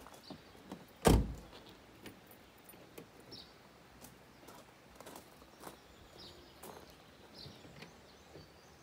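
A single loud thump about a second in, then scattered light clicks and knocks, with a few faint short high chirps now and then.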